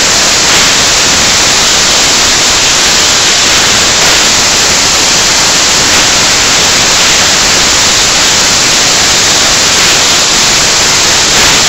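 Loud, steady static hiss with no beat, voices or separate sounds standing out.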